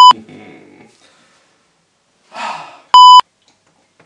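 Censor bleep, a loud, steady electronic beep of about a third of a second, sounding twice: right at the start and again about three seconds in, each time cutting over a word of the conversation.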